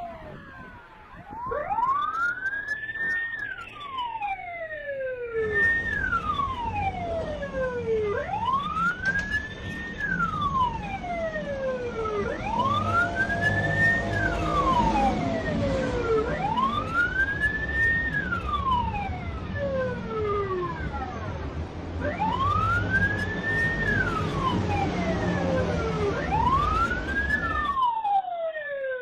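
Police siren wailing, its pitch rising and falling in slow sweeps about every four seconds, with fainter overlapping sweeps of a second siren. A low traffic rumble joins in about five seconds in.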